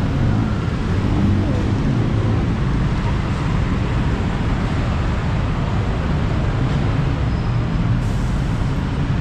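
Steady road traffic noise from cars, buses and motorbikes on the busy road below, a dense continuous low rumble.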